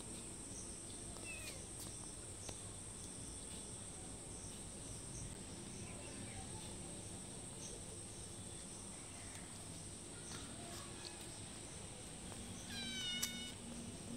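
A cat gives one short, high-pitched meow near the end, over the steady high chirring of crickets.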